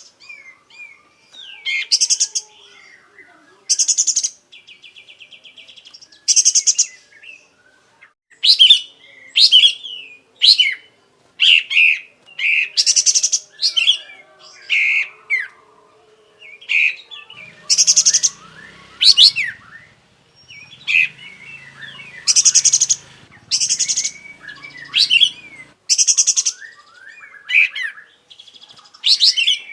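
A kapas tembak singing hard: a run of loud, harsh rattling trills every second or so, alternating with short whistled and chirping notes. This is the varied song of a bird in full voice, reeling off its repertoire.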